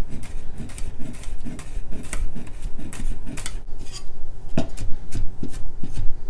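Wide-bladed kitchen knife rough-chopping garlic cloves on a wooden cutting board: a quick, uneven run of sharp taps of the blade striking the wood.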